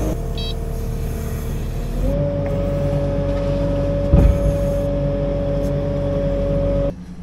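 Compact wheel loader's engine running under way, with a steady whine; its pitch steps up about two seconds in as the throttle is opened. A single clunk comes a little past halfway, and near the end the engine drops abruptly to a much quieter level.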